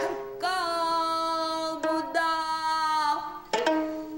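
Gayageum byeongchang: a woman's voice holds one long sung note, swelling into pitch at its start, over a few plucked gayageum strings, with a new note beginning near the end.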